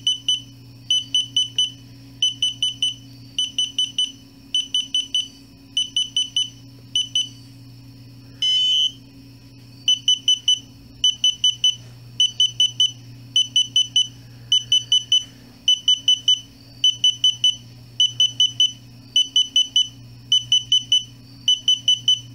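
DJI Spark remote controller beeping steadily while its firmware updates: quick runs of about four short, high-pitched beeps, about one run a second. Near the middle the beeping stops for about two seconds, broken by one different half-second sound, then resumes. A faint low hum runs underneath.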